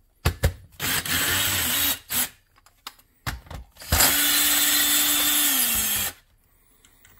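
Cordless drill/driver backing out the CPU heatsink screws in a Dell PowerEdge R620 server, in two runs: a short one about a second in and a longer one about four seconds in, whose motor pitch drops as it winds down.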